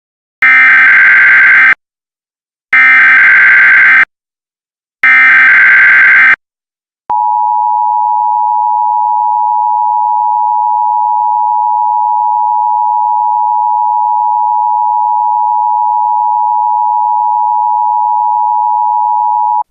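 Emergency Alert System signal: three loud bursts of screeching digital data (the SAME header), then the steady two-tone attention signal held for about twelve seconds, announcing that an alert message follows.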